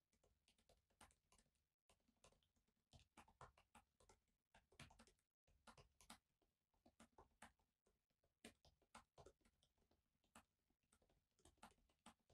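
Faint typing on a laptop keyboard: soft, irregular key clicks.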